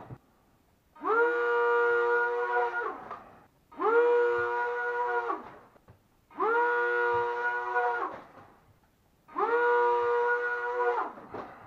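Small electric motors of a lightweight RC plane made from wall-climbing car parts, spinning up four times in a rising whine, running about two seconds at a steady pitch, then winding down.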